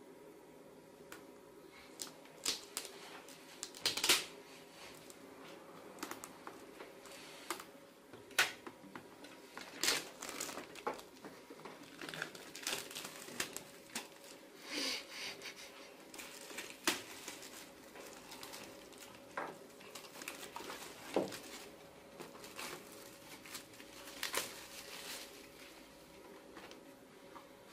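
Plastic shrink-wrap crinkling and tearing as it is cut and pulled off a cardboard product box, with irregular clicks and rustles from handling the box.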